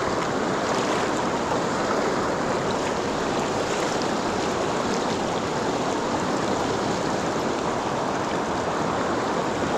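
Mountain stream rushing steadily, its water noise loud and close.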